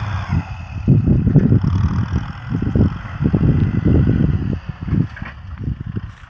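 Wind buffeting the microphone in irregular low gusts that ease off near the end, over the distant steady running of a Kubota M6040SU tractor's diesel engine.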